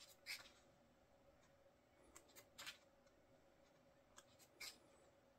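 Pages of a softcover photo book being turned by hand: faint, short paper flicks and rustles, one just after the start, a few together around two to three seconds in, and two more around four seconds in.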